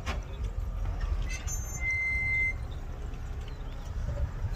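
Heavy earthmoving machinery running, a steady low diesel engine rumble, with a short high-pitched tone about two seconds in.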